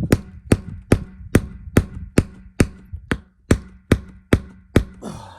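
A rapid, evenly spaced series of sharp knocks, about thirteen blows at a little over two a second, over a faint steady low hum.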